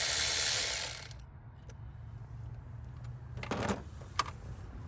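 Electric ratchet running for about a second as it loosens the hose clamp on the stock air box, then stopping. A few light clicks and knocks follow as the parts are handled.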